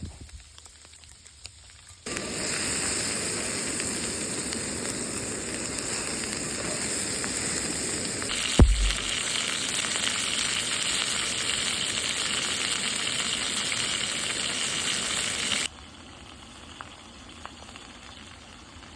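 Steak searing in a cast iron pan: steady, loud sizzling that starts abruptly about two seconds in and drops off sharply near the end to a quieter sizzle. A single sharp knock comes about halfway through.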